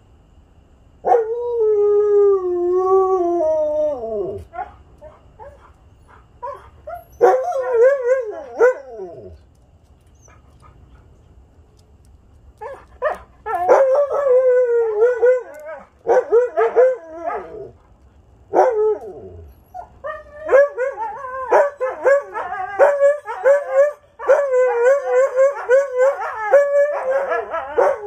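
Several huskies howling: one long howl about a second in that drops in pitch at its end, another a few seconds later, then after a short pause the dogs join in together with overlapping howls and short choppy calls that run on without a break through the last third.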